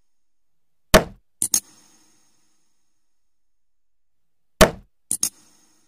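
Button-click sound effects for a like-and-subscribe animation. Each time there is a single tap, then a quick double click with a brief high ring. The set comes about a second in and again near the end.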